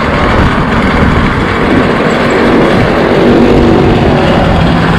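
Road traffic heard from a moving e-bike, with wind rumbling on the microphone and a vehicle engine droning in the middle.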